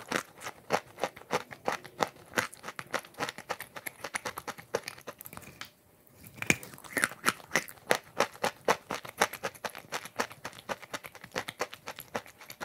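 Chewing chunks of chalk coated in wet clay paste: dense, rapid crunching clicks. The crunching stops briefly just before six seconds in, as a fresh bite is taken, then carries on.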